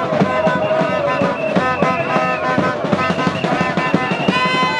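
Upbeat music with a steady, busy drum beat under long held melody notes.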